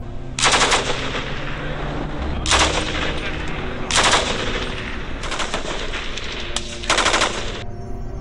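Japanese Type 99 light machine gun firing about five short bursts of automatic fire, spaced a second or two apart, stopping abruptly near the end.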